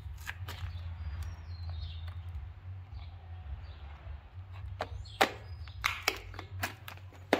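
Sharp clicks of diagonal cutters snipping heat-shrink tubing and of a plastic organizer box being handled: a couple of snips near the start, then a quick run of clicks and taps in the last couple of seconds, over a steady low hum.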